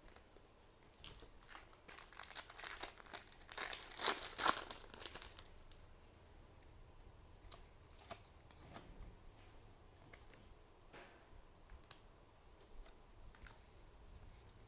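Crinkling and tearing of a trading-card booster pack's wrapper, strongest from about one to five seconds in, followed by scattered light taps and clicks of cards being handled.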